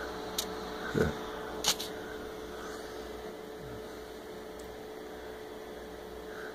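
Steady faint electrical hum, with three brief light knocks in the first two seconds, the middle one the loudest.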